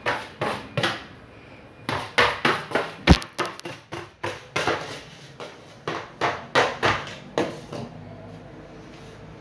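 A series of sharp knocks or taps, in quick runs of about three a second with short pauses between, dying away near the end.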